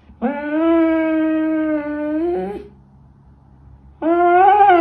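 Afghan hound giving long, drawn-out howls: a steady held call of about two and a half seconds that bends upward at its end, then a second one starting about four seconds in.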